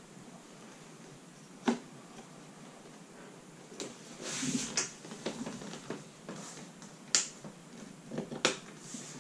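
Avid Carp Quick Up Session Organiser, a hard-sided folding tackle case, being handled and folded down: scattered sharp clicks and knocks from its hinged panels and catches, with a brief rustle about halfway through. The folding sticks rather than going smoothly.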